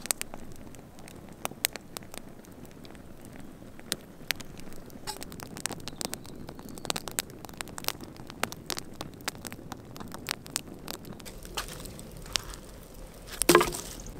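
Wood campfire crackling, with many irregular sharp pops over a soft hiss of flame. A louder burst of popping comes near the end.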